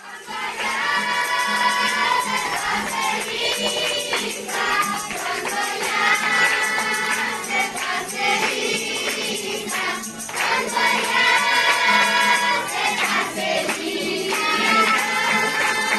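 A group of voices singing a worship song together in long held lines, with a tambourine keeping time.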